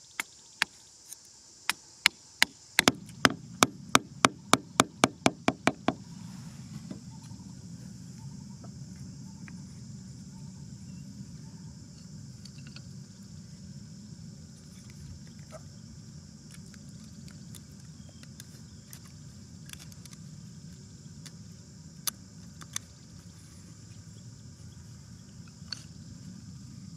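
Hammer driving a wooden stake into sandy ground: about seventeen sharp strikes over the first six seconds, quickening to about three a second. A few faint knocks follow later over a steady low rumble.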